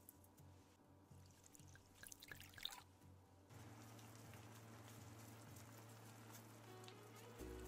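Faint sound of water poured into a stainless pan of salted shredded cabbage, with brief crackling spatter about two seconds in. This settles into a steady faint simmering hiss as the cabbage starts to cook.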